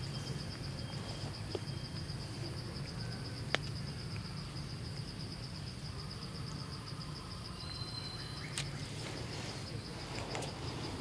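A high, steady insect trill with a rapid, even pulse over a low background rumble, with a couple of sharp clicks, the clearest about three and a half seconds in.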